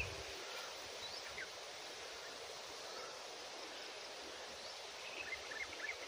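Steady rustle of wind through the trees, with a few faint, short bird chirps and a quick run of them near the end.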